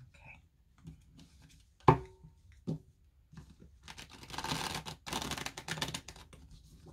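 Tarot cards being riffle-shuffled: a few sharp knocks, then a fast fluttering rush of card edges flicking together for about three seconds.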